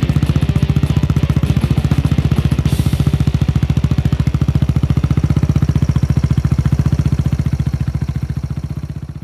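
Kawasaki Z125 Pro's single-cylinder four-stroke engine idling steadily through an OVER Racing TT-Formula RS aftermarket muffler, an even, deep exhaust pulse. It fades out near the end.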